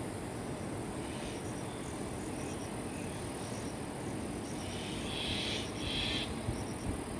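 Outdoor ambience: a steady low rumble with faint, repeated high chirps throughout, and two short, louder buzzy chirps about five and six seconds in.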